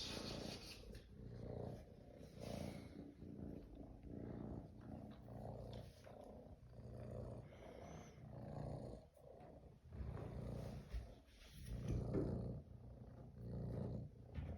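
Young cat purring, a low rumble that swells and fades with each breath, about once a second.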